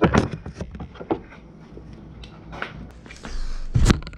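Knocks, bumps and rustling of someone moving about and handling things, with a loud thump right at the start and another near the end.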